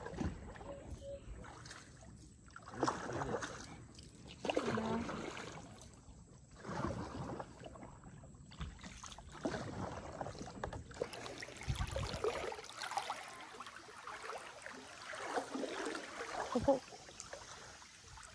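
Kayak paddle dipping and splashing in the water, with a stroke about every two seconds.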